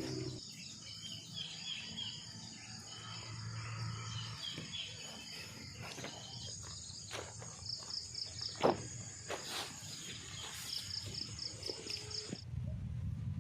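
Insects trilling in a steady high drone, with a few bird-like chirps and scattered knocks and rustles; the insect sound cuts off abruptly near the end.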